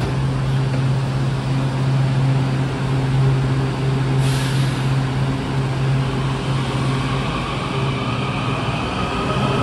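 Washington Metro 7000-series railcars pulling out of the station: a steady hum, a short hiss of air about four seconds in, then the traction motors' whine rising in pitch as the train starts to accelerate.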